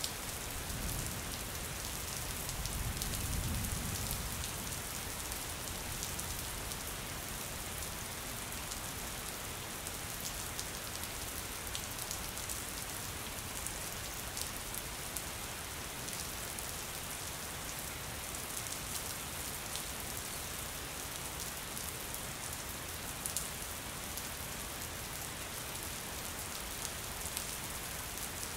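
Steady rain falling on a surface: a continuous hiss with scattered drop ticks. A low rumble swells and fades within the first few seconds.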